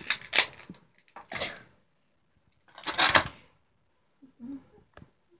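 Clear plastic blister packaging of a Littlest Pet Shop toy being handled and crinkled: three loud, short rustling bursts, then fainter handling sounds and a single click near the end.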